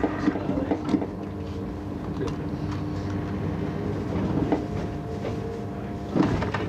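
Class 312 electric multiple unit running at speed, heard from inside the carriage: a steady hum of the traction motors with several held tones over the rumble of wheels on track.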